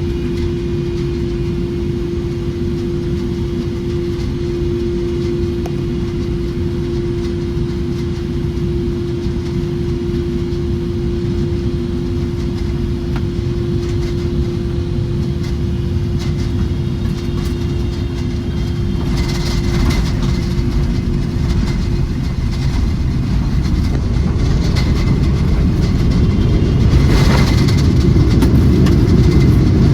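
Steady vehicle cabin rumble with a constant mechanical hum. The rumble grows louder over the last several seconds, with light rattles.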